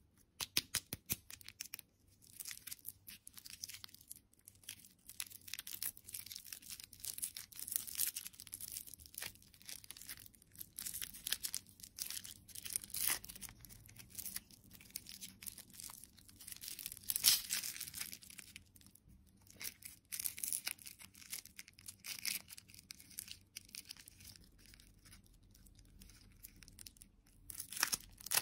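A crinkly plastic lollipop wrapper being torn open and peeled off the candy by hand: an irregular run of crackling rustles and sharp crinkles, the loudest about seventeen seconds in.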